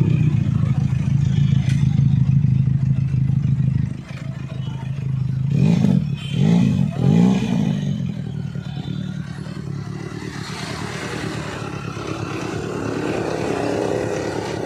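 Motorcycle engine running steadily, then blipped three times in quick succession about six seconds in, each rev rising and falling in pitch, before settling back to a steady run.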